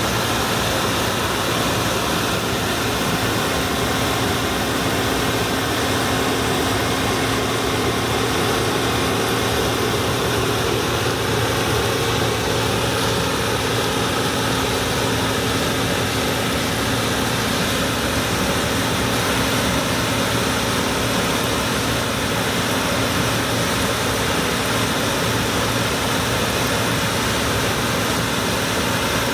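Allis-Chalmers Gleaner F2 combine running steadily while harvesting corn: a constant engine drone with a steady hum and no change in load.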